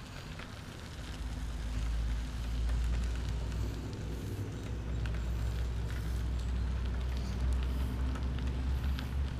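Riding noise from a moving trike picked up on its on-board camera: wind rumbling on the microphone and wheels rolling over the path, growing louder about two seconds in.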